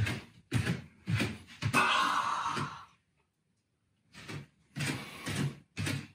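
A man breathing loudly and theatrically in short, sharp gasps and puffs, with one longer breath about two seconds in, a pause of about a second, then more quick breaths, like a swimmer coming up for air.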